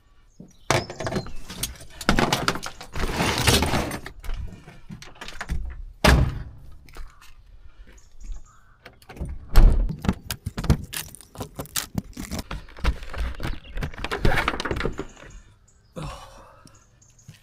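Irregular knocks, clinks and rustling from equipment being handled, with metal hardware jangling and several louder thuds.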